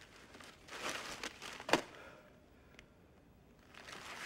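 Bubble wrap crinkling, with one sharp pop about a second and a half in and a fainter click a second later.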